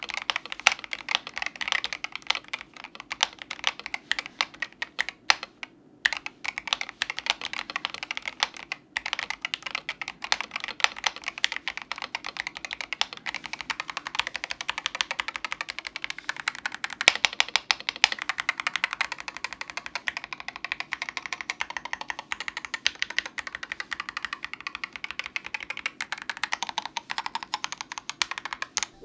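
Womier M68 HE 65% mechanical keyboard with Outemu magnetic switches, PBT keycaps and a plastic case, typed on continuously: a fast, steady stream of key clacks, broken by two short pauses about five and a half and nine seconds in.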